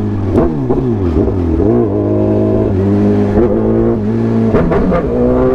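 Sport motorcycle engine heard from the rider's seat as the bike slows: its pitch drops in the first second, then runs steadily with a few brief rises in revs.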